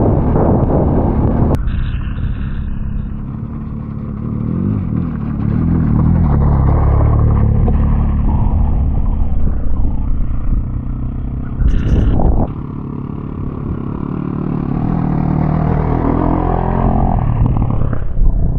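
Adventure motorcycle engine running under load on a trail, its pitch rising and falling with the throttle, over a rush of wind and road noise. A brief loud clatter comes about twelve seconds in.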